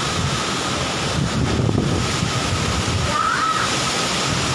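Heavy rain pouring in a strong windstorm, with gusts buffeting the microphone in low rumbling surges during the first couple of seconds.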